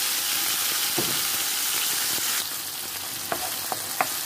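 Chopped tomatoes sizzling in hot oil in a nonstick frying pan. The sizzle eases a little past halfway, then a wooden spoon stirring them gives several sharp knocks against the pan near the end.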